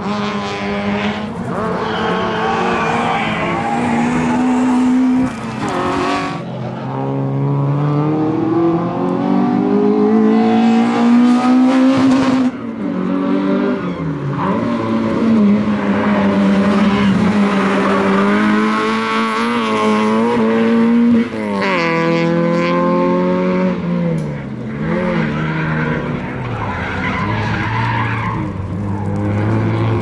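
Citroen Saxo rally car's engine revving hard, its pitch climbing and falling repeatedly with several sudden drops as the driver lifts off or shifts, while the car is thrown through tight turns with tyres squealing on the asphalt.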